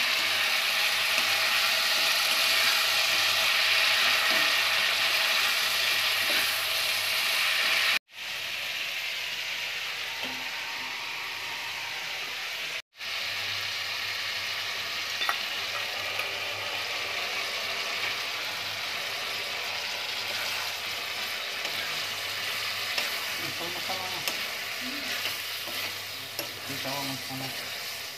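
Vegetables sizzling in hot oil in an aluminium kadai as a steady hiss. It is loud for the first third, breaks off twice briefly, then goes on quieter, with a spoon stirring and scraping the pan near the end.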